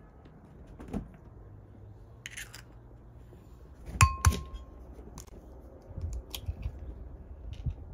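An egg is rapped twice against the rim of a glass bowl to crack it, and the glass gives a short ring after the first knock. Faint clicks of the eggshell being handled and pulled apart follow.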